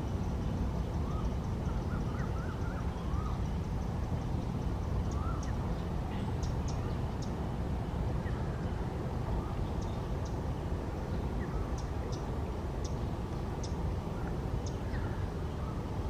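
Birds chirping and calling over a steady low rumble: a few short rising calls in the first few seconds, then scattered brief high chirps through the rest.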